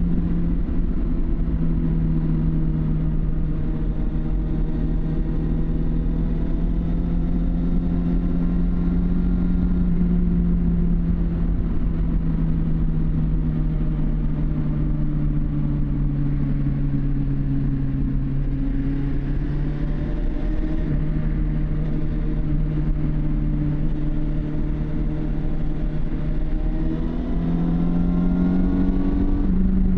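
Suzuki GSX750 Inazuma's inline-four engine with its stock exhaust, running under way with the rider aboard. The engine note sinks slowly through the middle, breaks briefly about two-thirds through, then climbs again near the end as the bike accelerates.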